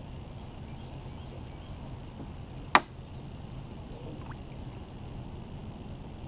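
A single sharp knock a little under three seconds in, over a steady low hum.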